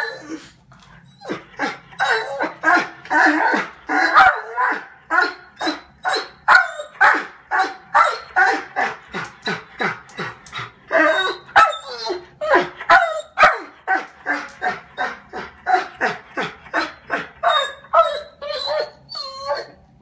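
German Shorthaired Pointer barking and yipping in a rapid, almost unbroken run of short calls, about two or three a second, starting about a second in: excited barking at birds on the skylight overhead.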